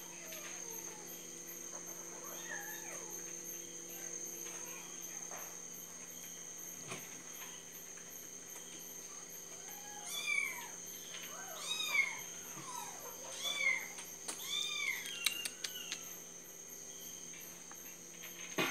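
A domestic cat meowing: a quick run of several meows from about ten to fifteen seconds in, each call rising and falling in pitch, over a steady high-pitched trill.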